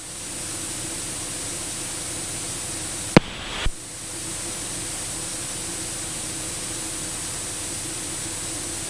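Steady hiss of the cockpit intercom and radio audio feed between transmissions, with a sharp click about three seconds in followed by a brief drop in the hiss.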